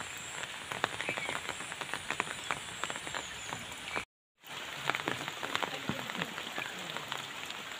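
Steady rain falling, a dense patter of drops. The sound cuts out completely for about half a second, about four seconds in.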